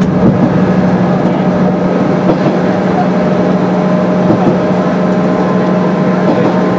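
Kanto Railway KiHa 350 diesel railcar on the move, heard from inside its rear cab: a steady low drone from its DMH17 diesel engine over the rumble of wheels on rail.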